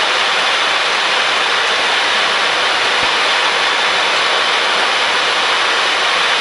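Steady rushing air and engine noise inside the flight deck of a Boeing 737-800 on final approach, an even hiss with no change in level.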